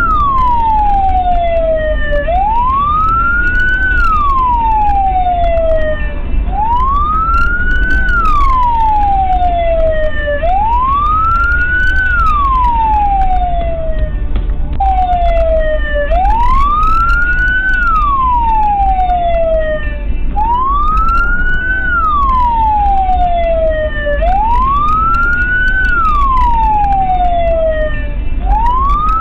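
Emergency vehicle siren on a slow wail: each cycle rises for about a second and a half, then falls more slowly, repeating roughly every four seconds. Under it is the steady low rumble of the car driving.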